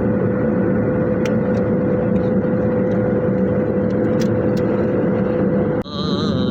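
Steady noise of a moving vehicle on the road, with a constant hum running through it; it cuts off suddenly near the end.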